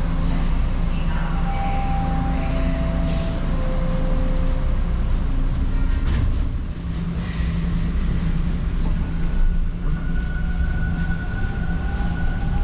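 Toronto Line 2 subway train heard from inside the car: the steady rumble and hum of the train in motion. A short run of three tones falls in pitch early on, with a sharp click among them. A thin high whine comes in about nine seconds in.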